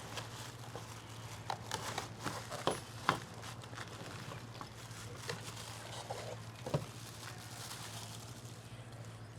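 Scattered clicks and light knocks of plastic packaging and a plastic cordless impact driver being handled, most of them clustered about a second and a half to three seconds in and one more near seven seconds, over a steady low hum.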